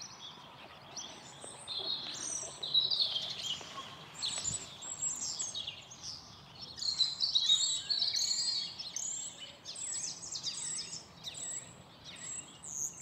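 Small songbirds chirping and singing, many short high-pitched calls overlapping one another over a faint background hiss.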